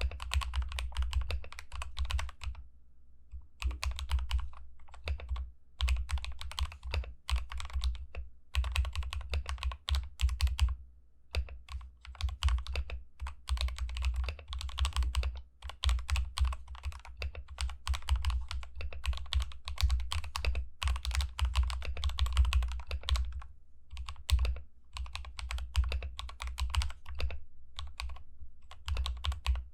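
Typing on a Tester68 mechanical keyboard fitted with lubed and filmed WS Aurora Pink switches, lubed stabilisers and XDA keycaps: runs of fast key presses broken by short pauses.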